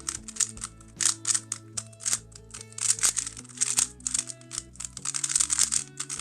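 Rapid clicking and clacking of a QiYi WuWei M 3x3 speedcube being turned fast during a timed solve, in quick flurries with short pauses, stopping abruptly at the end. Background music plays underneath.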